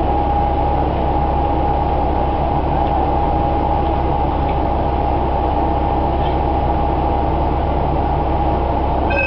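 Inside a stationary diesel railcar: the engine idles with a steady low rumble and a constant whine. Near the end, a chime of clear electronic tones begins.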